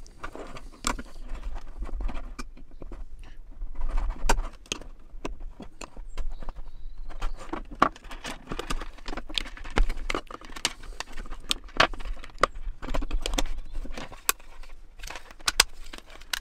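Juntek battery-monitor shunt being reassembled by hand: irregular metal and plastic clicks and knocks from a small spanner on its terminal nuts and from its plastic case being fitted, with low thumps of handling on a wooden table.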